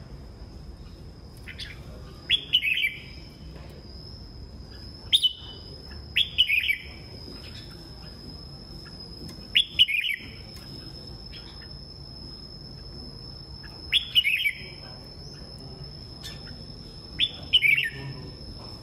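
Red-whiskered bulbuls singing: about six short, loud phrases a few seconds apart, each a quick warble that slides down in pitch.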